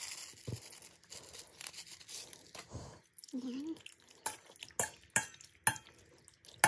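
Seasoning granules pouring from a sachet onto raw beef in a stainless steel bowl with a soft hiss. Then a metal spoon stirs the wet, marinating beef cubes and clinks sharply against the bowl several times in the last few seconds.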